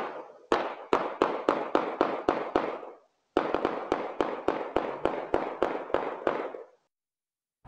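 A barrage of gunshots heard through a Wyze security camera's microphone: two rapid volleys, each shot echoing, about three to four a second, with a brief pause about three seconds in before the longer second volley.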